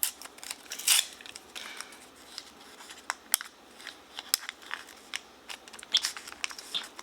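Plastic wrapper of a McDonald's Pokémon card pack being opened and handled: crinkling with scattered sharp clicks and snaps.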